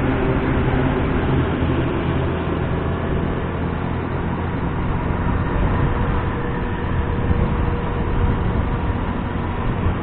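Steady road and wind noise from a vehicle travelling at speed on a highway.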